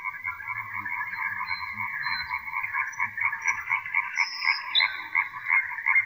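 Dense chorus of frogs croaking, pulsing steadily without a break. A few short, high whistled notes of a nightingale come over it about four seconds in.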